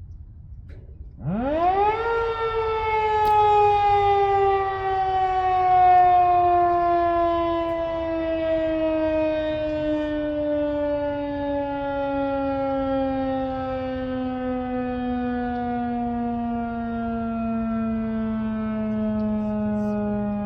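Federal Signal 2001-130 electromechanical warning siren spinning up sharply to full pitch about a second in, then winding down slowly with its tone falling steadily: a short growl test.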